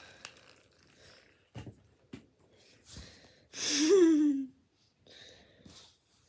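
A person's breathy voiced sound, like a sigh or yawn, about a second long, its pitch rising and then falling, a little past the middle; faint knocks and rustling around it.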